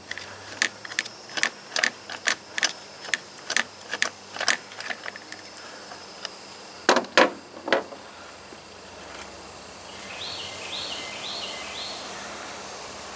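Sharp metallic clicks, about two or three a second for the first few seconds, from a wrench working the spark plug loose on a Stihl 021 chainsaw. Two louder knocks follow, then a few faint high chirps near the end.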